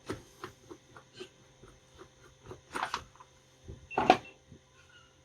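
Irregular clicks and knocks of hands working on a Stihl MS361 chainsaw's air filter and cover, with one louder knock about four seconds in.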